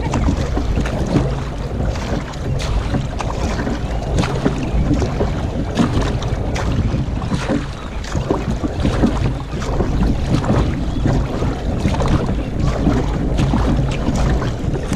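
Paddle blades of a narrow racing kayak splashing into the water stroke after stroke on alternating sides, with water rushing along the hull. A steady low rumble of wind on the microphone runs underneath.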